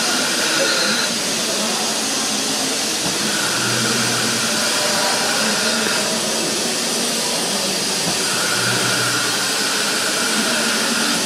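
Steady hiss of steam escaping around the cylinders and driving wheels of steam locomotive 555.0153. A fainter tone swells in and fades out about every five seconds.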